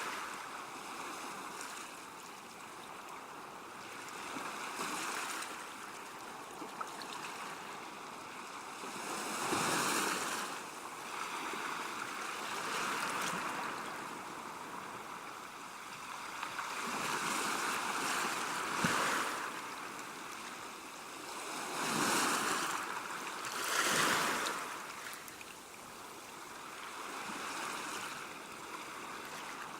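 Sea waves washing onto the shore, a steady wash of surf that swells and falls back. Several louder breaks stand out, the strongest two close together near the end.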